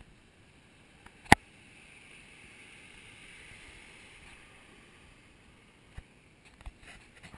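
Steady soft hiss of gentle lagoon surf and breeze on a sand beach, with one sharp click a little over a second in and a few smaller clicks near the end.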